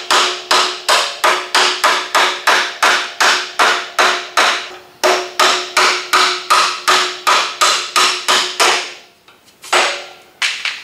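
Rapid series of hammer blows on a steel door hinge pin of a 1969 Chevy Chevelle, about three a second with a metallic ring, driving the pin out of the hinge. The strikes pause briefly a little before halfway, stop near the end, and two last blows follow.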